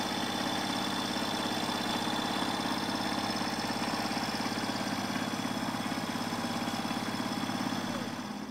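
Sailboat's engine running steadily, with a fast even pulse.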